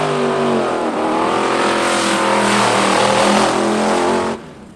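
Drag-racing car engines at full throttle, pitch climbing as the cars accelerate. The sound cuts off suddenly near the end.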